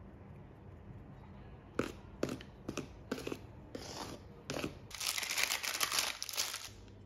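A wire whisk knocks and scrapes against a stainless steel mixing bowl as flour is whisked into cheesecake batter. Near the end, baking paper crinkles for about two seconds as it is pressed into a round cake tin; this is the loudest sound.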